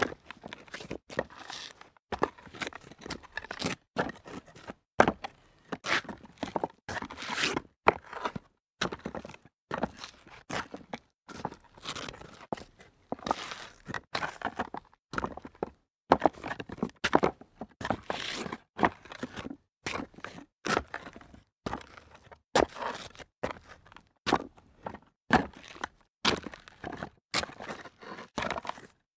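A sneaker stepping and grinding on loose rock debris: a series of short gritty crunches and scrapes, each separated by brief silence.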